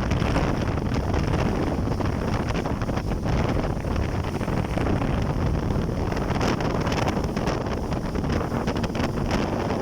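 Steady wind buffeting the microphone over the rush of a jet ski running across the sea.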